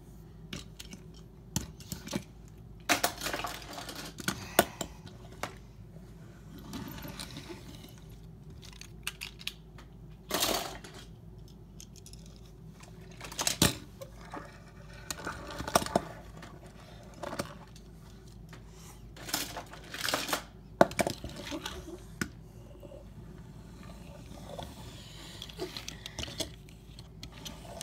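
Small toy cars clattering and knocking against each other and hard surfaces: irregular sharp clicks and short rattling bursts, with the biggest clusters about 3 to 5 seconds in and again in the second half.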